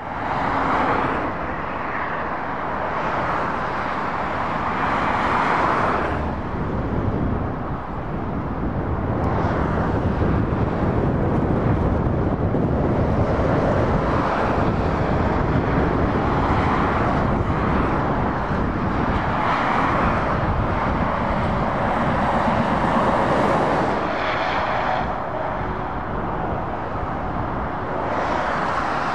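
Motorway traffic: a continuous rush of tyres on tarmac and engines from passing cars and heavy lorries, swelling and easing as groups of vehicles go by.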